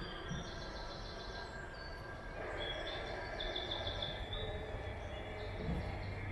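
Outdoor ambience: a steady low rumble and background hiss, with several high-pitched chirping trills coming and going above it.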